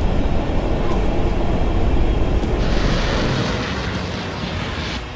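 A deep, loud rumbling roar, as of a ship-launched missile's rocket motor. About two and a half seconds in, a hissing rush joins it while the rumble fades.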